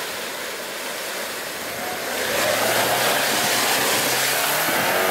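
Lada Niva off-roader ploughing through a shallow river ford, water splashing and rushing around its wheels while its engine pulls under load. The splashing grows louder about two seconds in.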